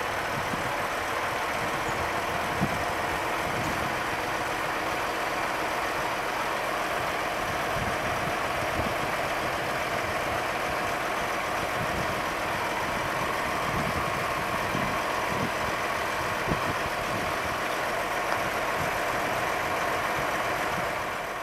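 Steady engine and machinery noise, like a heavy truck idling, with a few faint ticks now and then.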